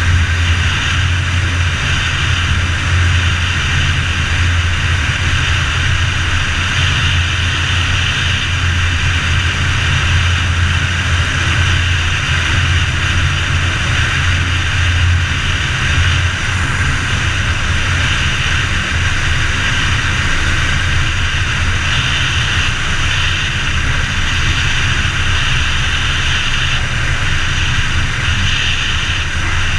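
The trike's Rotax 912 ULS four-cylinder four-stroke engine and three-bladed propeller running steadily in flight. A constant low drone sits under an even, loud rushing hiss.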